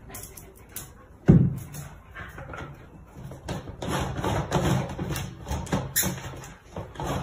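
A single thump about a second in, then a run of irregular scrapes and taps as a cat paws and scratches at the lid of a plastic jar.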